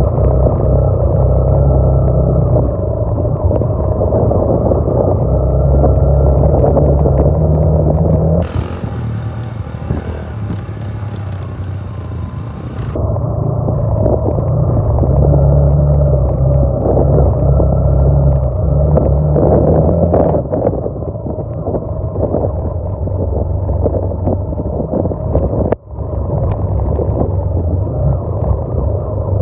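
Motorcycle engine running steadily as the bike rides a rough rocky dirt track, its note shifting with the throttle. A stretch of hissy noise lasts several seconds about a third of the way in, and there is a brief dropout near the end.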